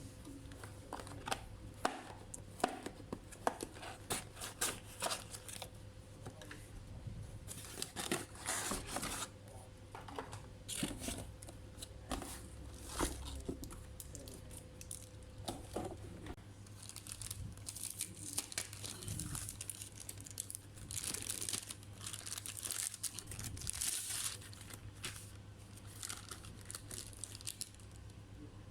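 Plastic crinkling and tearing, mixed with many small clicks and taps of parts being handled. The crinkling is densest in the second half, over a faint steady electrical hum.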